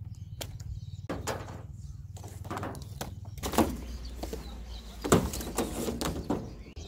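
Coiled black polyethylene irrigation pipe being dragged and unrolled across a metal truck bed: rustling and scraping with a few sharp knocks, the loudest about three and a half and five seconds in, over a steady low hum.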